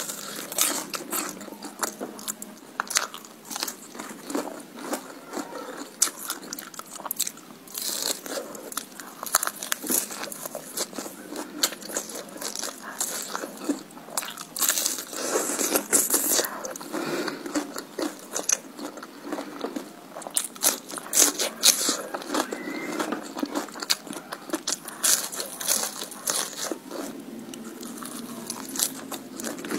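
Close-miked biting and chewing of crispy fried shrimp coated in chili sambal, eaten with rice by hand. An irregular run of crisp crunches with chewing between them.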